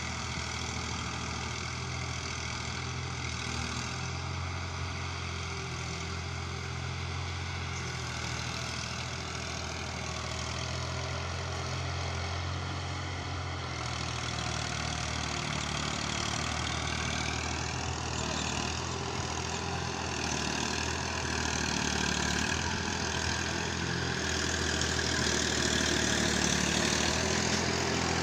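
Tractor diesel engine idling steadily, getting somewhat louder in the last third.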